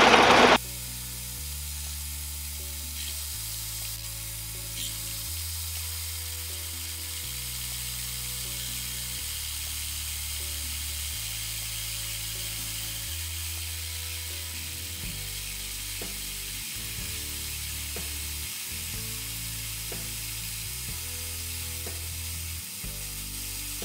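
The metal lathe's cutting noise cuts off about half a second in. Background music follows: low bass notes changing every second or two, over a steady high hiss.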